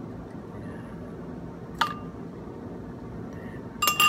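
Metal spoon clinking against a dish while scooping whipped coffee foam: one sharp clink about two seconds in, then two more close together near the end, each with a short ring.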